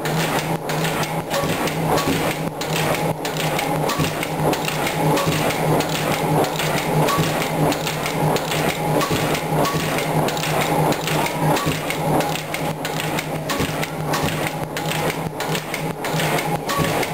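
1918 65 hp Blaisdell two-cylinder air-compressor engine running steadily, with a regular rhythm of knocks over a constant low hum.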